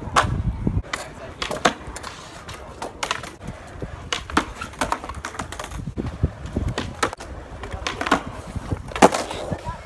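Skateboard wheels rolling on concrete, with repeated sharp clacks of the board and trucks hitting the ground and a concrete box during ollie-to-manual attempts. The loudest clack comes about nine seconds in.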